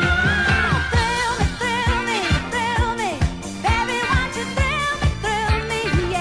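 Pop song with a sung melody over a steady beat.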